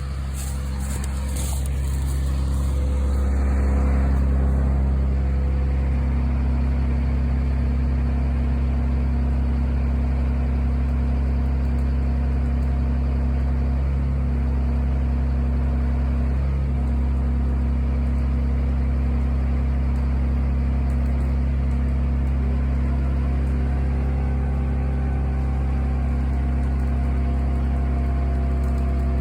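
A heavy vehicle engine runs steadily with a deep, even drone. It builds up over the first few seconds, then holds at a constant speed while it works the cable pull.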